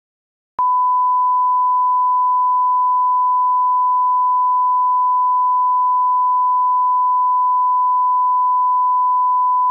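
Steady 1 kHz line-up test tone, the reference tone that accompanies colour bars. It begins about half a second in and holds one unchanging pitch.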